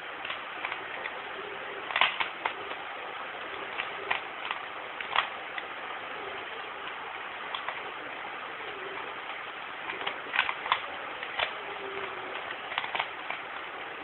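A 3x3 Rubik's cube being turned by hand: its plastic layers click in irregular clusters of quick turns, over a steady hiss.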